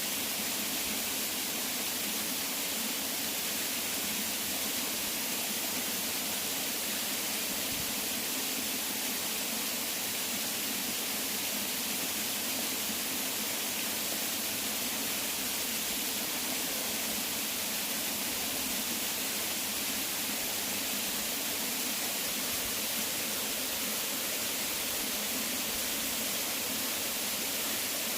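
Waterfall: water falling and splashing in a steady, unbroken hiss with no change.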